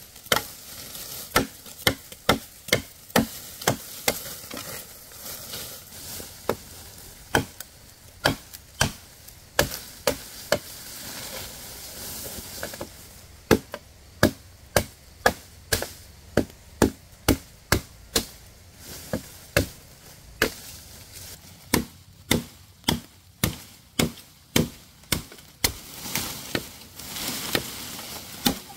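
Repeated chopping with a blade: sharp strikes about two to three a second, in runs broken by short pauses, over a faint hiss.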